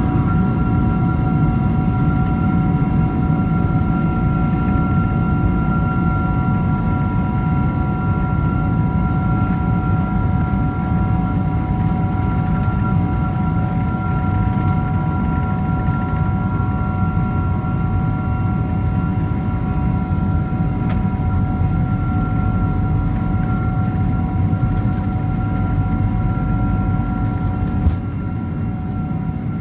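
Rolls-Royce RB211 turbofan engines of a Boeing 767-300ER during its takeoff roll, heard inside the cabin near the wing: a steady deep rumble with a steady high whine of several fan tones over it. The sound drops a little near the end.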